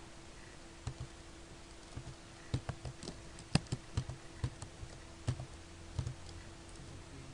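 Computer keyboard being typed on: irregular single keystrokes, a few at first and then quicker runs in the middle, over a faint steady hum.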